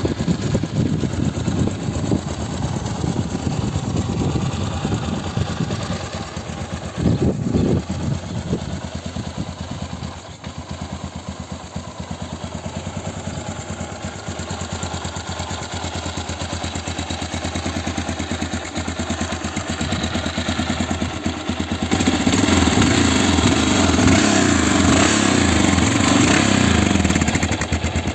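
1979 Honda XL500S's air-cooled single-cylinder four-stroke engine running at idle, with a short blip of the throttle about seven seconds in. Near the end it is held at higher revs for about five seconds, then drops back to idle.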